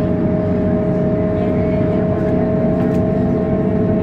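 Steady engine and road noise heard from inside a moving road vehicle, with a droning whine held at one pitch.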